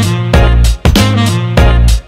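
Music with a heavy bass line and a stop-start rhythm, the sound breaking off briefly about every half second.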